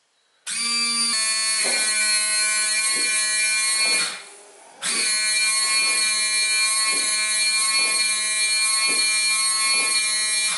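Newly fitted electric windscreen washer pump and wiper motor of a 1973 VW Bay Window camper running: a steady high buzz with a soft knock about once a second. It cuts out briefly about four seconds in and then starts again.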